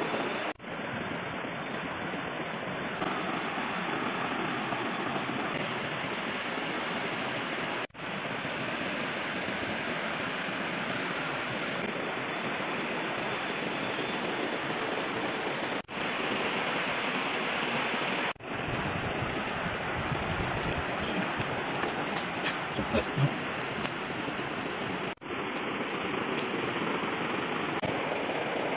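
Steady rushing noise of flowing water, with a few short snaps around three quarters of the way in.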